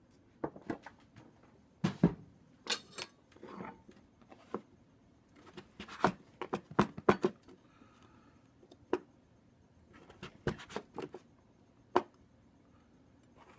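Irregular knocks and clicks of a chef's knife cutting butternut squash on a wooden cutting board, with squash cubes set down on a metal sheet pan.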